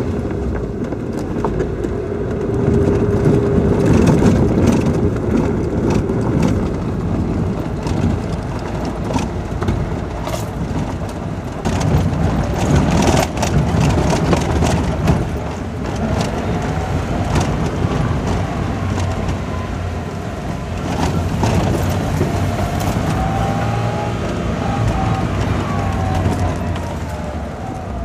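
Car driving slowly over a rough gravel dirt track: the engine runs steadily while the tyres crunch over stones, with frequent knocks and rattles from the bumps.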